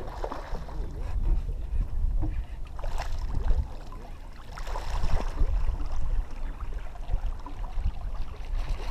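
Wind rumbling on the microphone and water lapping at a small boat, with splashing about three seconds in and again about five seconds in as a hooked bass thrashes at the surface beside the boat.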